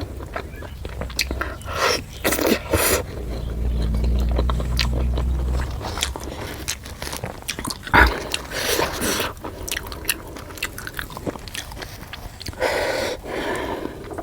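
Close-miked eating sounds: biting and chewing puri with chicken curry, with many short wet mouth clicks and smacks. A low rumble runs for a couple of seconds in the middle, and a single thump comes about eight seconds in.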